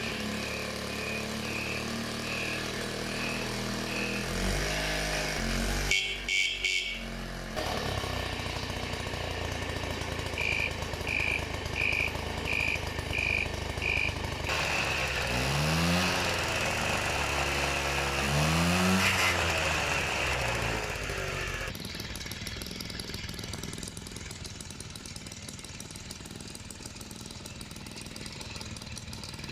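Honda Express NC50's 50cc two-stroke engine running, revving up and dropping back twice in the middle, then settling to a quieter, rattly idle for the last part. A rapid high beeping sounds at the start and again about ten seconds in.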